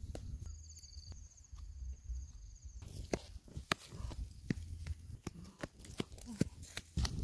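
Footsteps through dry grass and stubble: irregular crunching steps and rustling stalks over a low rumble, the steps coming thicker in the second half. A faint high wavering tone sounds during the first three seconds.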